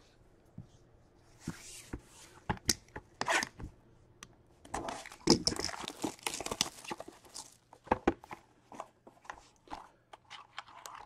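Hockey card packaging being torn open and crinkled, with scattered clicks and rustles of cards being handled. There is a short flurry about two seconds in and a longer stretch of busy tearing and rustling in the middle.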